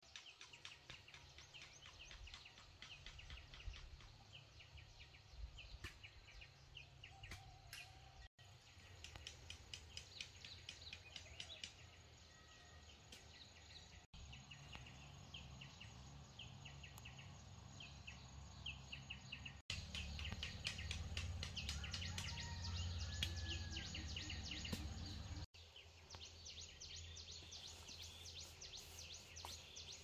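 Outdoor ambience of many rapid high chirps from birds and insects over a low rumble, faint overall. The sound drops out for an instant four times, and the rumble is strongest for several seconds past the middle.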